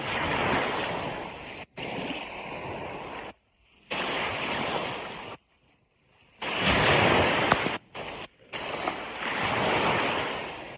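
Ocean surf washing on a beach in a steady hiss that swells and eases, loudest about two-thirds of the way through. The sound cuts out abruptly to silence several times, for a moment up to about a second each.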